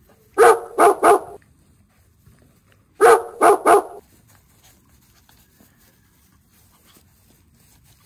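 A dog barking in groups of three quick barks, the same group of three repeating about two and a half seconds later.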